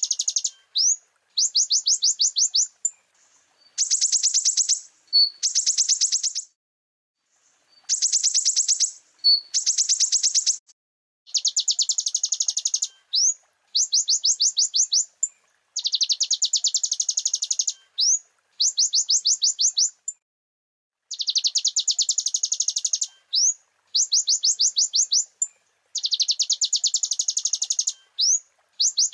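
Konin sunbird singing: high, rapid trills of evenly spaced notes in bouts of one to two seconds with short gaps, and short single rising notes in between.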